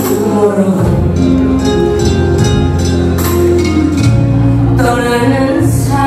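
A woman singing into a handheld microphone over a recorded instrumental backing track, both amplified through the hall's loudspeakers.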